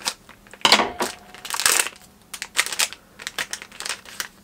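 Scissors cutting open a foil blind-bag packet, and the foil crinkling as it is torn open and reached into: an irregular run of crackles and clicks, loudest in two bunches in the first two seconds.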